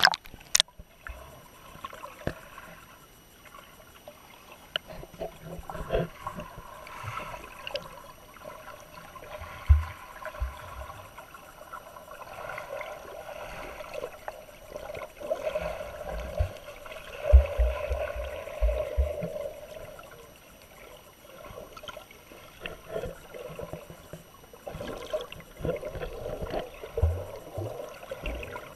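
Lake water sloshing, splashing and gurgling around a GoPro held by a swimmer, dipping between the surface and underwater. Irregular small clicks and knocks throughout, with a short run of low thumps about two thirds of the way in.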